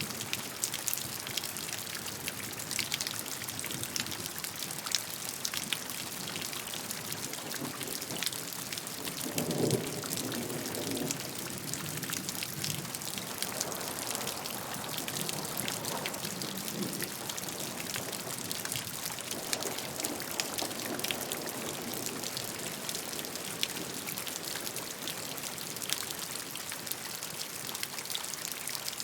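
Steady rainfall, with many individual raindrops tapping sharply through it. A few soft low rumbling swells come and go, the strongest about ten seconds in.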